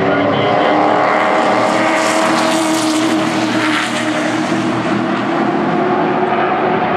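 A pack of race trucks' engines running hard together at racing speed, a dense mix of engine notes that swells louder about two to three seconds in, then eases.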